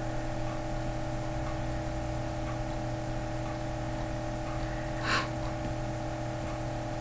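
Steady background hum and whir with several fixed tones, and a single sharp click about five seconds in.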